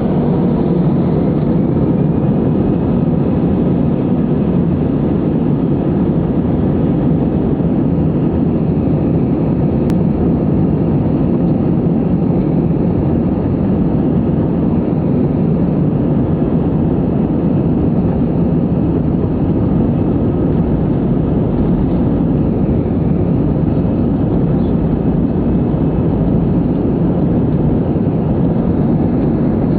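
Airbus A319 jet engines running at low taxi power, heard from inside the passenger cabin over the wing: a steady, even rumble that neither rises nor falls.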